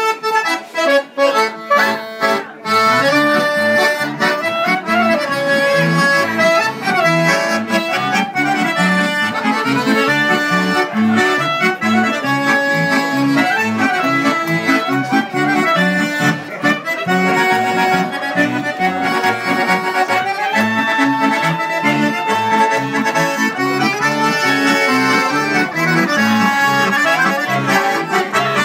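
Accordions and a clarinet playing a traditional tune together, with a few short breaks in the music in the first couple of seconds.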